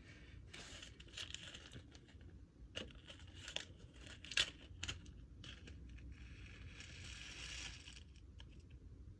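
Slime being handled and mixed by hand, with crinkling, crackling noise and a few sharp clicks and pops.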